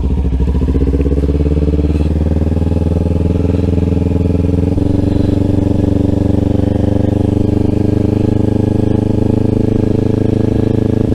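Motorcycle engine running steadily at a cruising pace, heard from on the bike, with one change in the engine note a little under halfway through.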